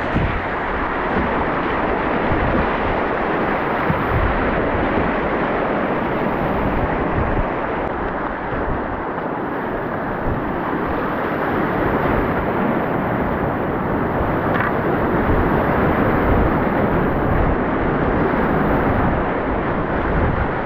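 Steady rushing of river whitewater, with low wind rumble buffeting the microphone.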